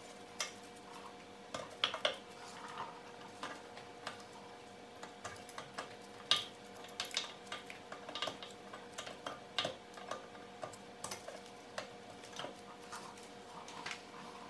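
Irregular small metallic clicks and clinks of brake pads and caliper parts being handled and fitted on a Porsche Macan GTS rear disc brake. A faint steady hum runs underneath.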